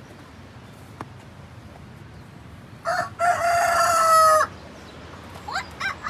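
Rooster crowing once: a short first note, then a long held call that falls slightly in pitch, about three seconds in.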